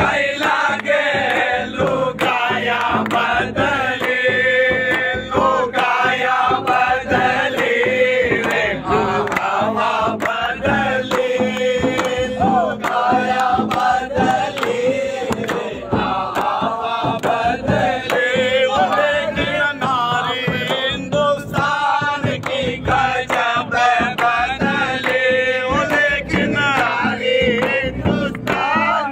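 Men singing a Holi fag folk song together in chorus, with steady rhythmic hand strokes on a large frame drum.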